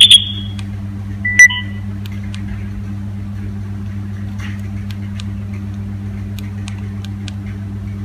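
Nokia 3530 mobile phone in its ringtone menu: a ringtone's last note cuts off at the start, and a single short key beep sounds about a second and a half in. After that there are only a few faint key clicks over a steady low hum.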